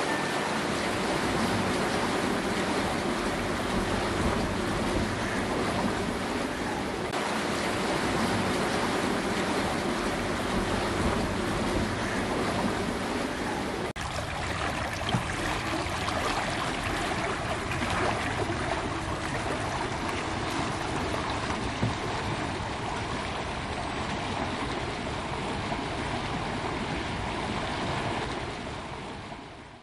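Steady rush of lapping, churning water with outdoor noise, with a brief drop about fourteen seconds in; it fades out at the very end.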